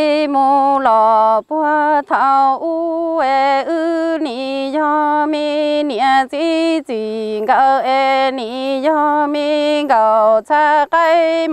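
A woman's solo voice singing Hmong kwv txhiaj, unaccompanied. She holds long, slightly wavering notes that slide between pitches, in short phrases broken by quick breaths.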